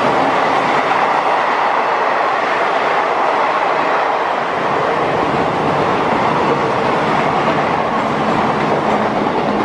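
A passenger train running past on the track, its coaches rumbling steadily. A low, steady hum joins in near the end.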